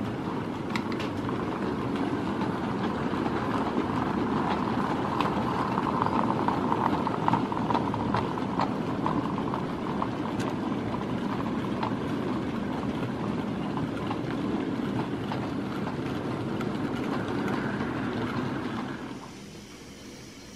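HO-scale model goods train rolling past on sectional track: a steady rumble of small wheels on the rails with scattered clicks. It dies away about 19 seconds in as the last wagons pass.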